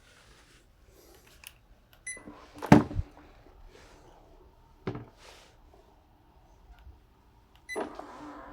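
TOTO TCF8PM52 electronic bidet seat beeping, then its automatic lid motor running briefly and the lid closing with a loud knock, followed by a softer knock a couple of seconds later. Near the end it beeps again and the motor starts to hum as the lid moves.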